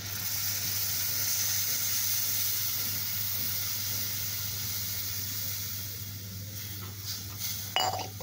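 Water poured onto hot sautéed onion-and-spice masala in a clay pot, the base of a fish curry, sizzling and hissing loudest in the first couple of seconds, then slowly settling to a softer hiss. A brief sharp sound comes near the end.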